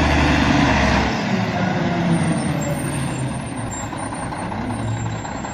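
Large truck running, with a deep engine rumble that drops away about a second in, leaving a steady hiss and a lower engine drone.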